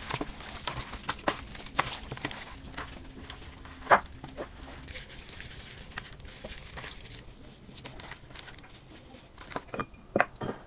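Raw chicken pieces being cut and handled in marinade: scattered wet crackles and short clicks, with one sharp click about four seconds in and a few more clicks near the end.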